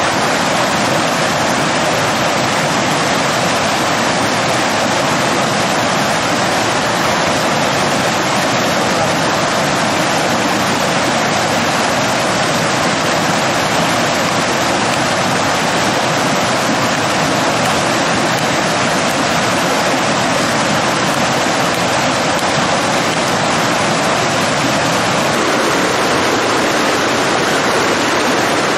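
Fast mountain stream rushing and splashing over rocks close by, a loud, steady rush of water.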